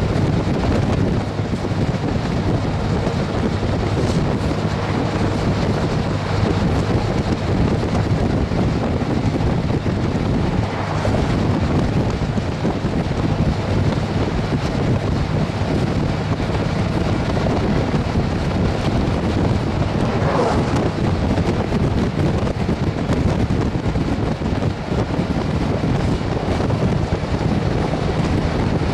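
Wind buffeting the microphone of a camera in a moving vehicle, a loud, even rush over a steady low rumble.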